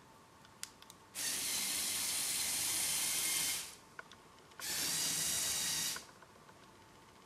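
LEGO Technic tank's small electric motors and plastic gear train running in two spells, the first about two and a half seconds and the second about one and a half, as the tank drives and turns on its tracks. A few light plastic clicks from the remote's levers come just before each spell.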